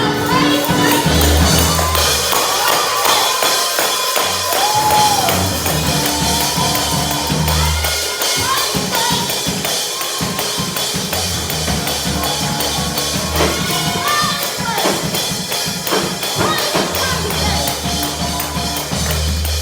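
A live church band playing up-tempo gospel praise music: a drum kit keeps a fast, busy beat under long held bass notes, with voices calling out over the music now and then.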